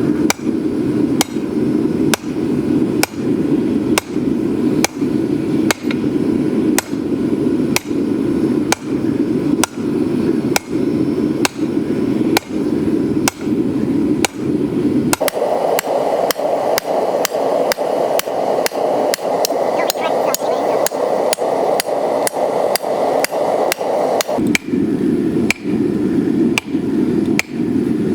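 Hand hammer striking hot steel on an anvil in a steady rhythm, roughly two ringing blows a second and quicker for several seconds in the middle, as the eye of a 1045 steel hammer head is punched and drifted. A steady rushing noise runs underneath.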